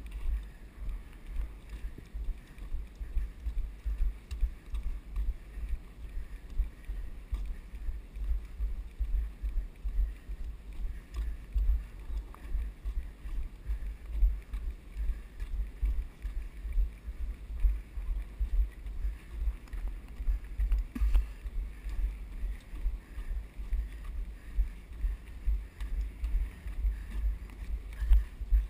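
Footsteps on a wooden dock, heard as low thuds at a walking pace, mixed with wind rumbling on the body-worn camera's microphone.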